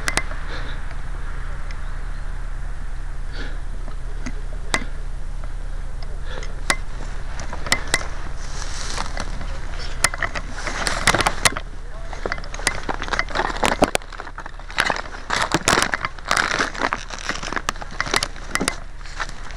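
Dry grass, twigs and brush crackling and rustling as someone pushes through undergrowth, in dense bursts from about halfway through, over a steady low hum; a few single sharp clicks come before that.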